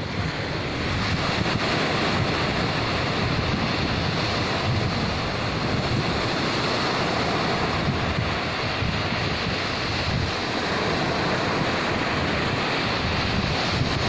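Small ocean waves breaking and washing up a sandy beach in a continuous wash of surf, with wind buffeting the microphone as a low rumble.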